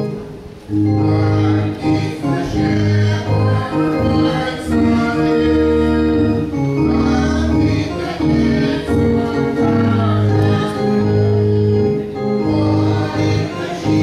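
A church hymn sung by a group of voices with organ accompaniment. The music drops away at the start and comes back in with the singing just under a second in.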